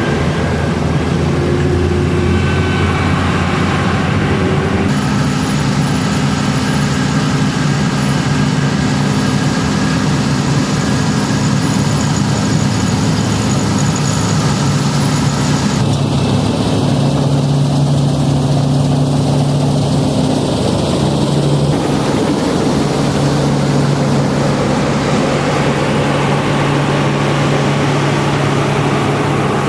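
Diesel engines of New Holland harvest machinery (combine harvesters and a tractor) running steadily at work, the sound changing abruptly about five, sixteen and twenty-two seconds in as it switches between machines.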